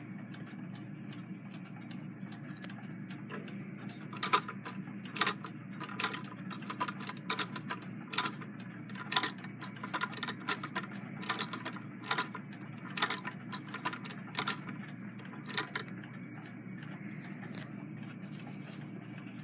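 Singer 66 lock-stitch sewing machine worked slowly through the fabric, its mechanism giving a sharp click about once a second over a steady low hum.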